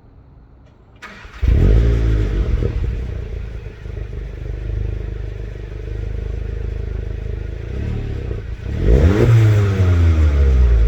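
Stock 2020 Volkswagen GTI's turbocharged 2.0-litre four-cylinder starting up: a click, then the engine catches about a second and a half in with a flare that settles down to a steady idle. Near the end it is revved once, the pitch rising quickly and falling slowly back toward idle.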